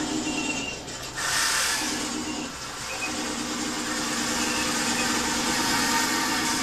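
Simulated tank engine idling from an RC tank's ASP sound unit, played through its small speaker. A little after a second in the sound dips and changes briefly, then settles back into the steady idle.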